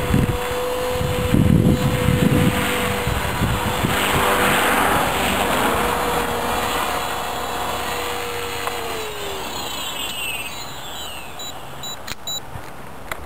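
A motor's steady whine winds down in pitch about nine seconds in, with gusts of wind buffeting the microphone in the first few seconds.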